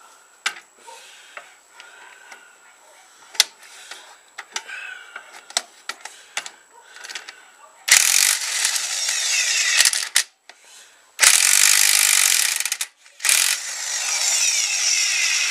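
Impact wrench hammering on a small engine's flywheel nut in three bursts of about two seconds each, after a stretch of small clicks and knocks from handling tools and parts.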